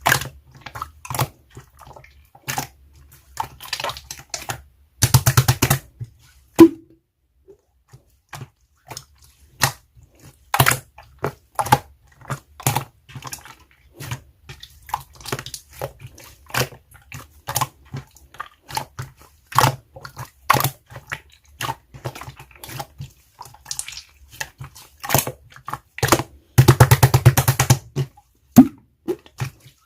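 Slime being squished and poked by hand: a steady scatter of wet clicks and pops, with two runs of rapid crackling pops, one about five seconds in and one near the end.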